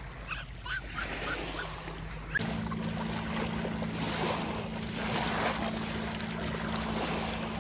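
Small river waves lapping on a sandy shore, with wind on the microphone and a few short high chirps in the first couple of seconds. About two and a half seconds in, the steady low hum of a boat motor out on the river sets in.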